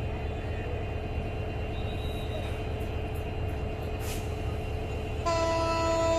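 Steady rumble of a train on the rails, then a diesel locomotive's horn sounding one held blast, starting about five seconds in.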